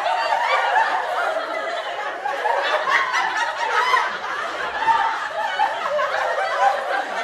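A group of people laughing and chuckling together without a break, many voices overlapping.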